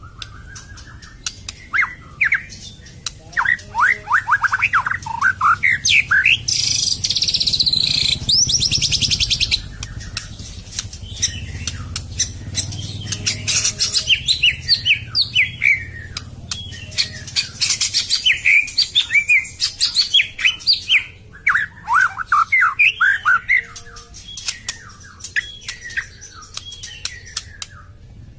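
White-rumped shama (murai batu) singing in rapid phrases of falling whistled notes, with a harsh, rasping burst of song about seven seconds in: the rough 'tembakan kasar' style of its song.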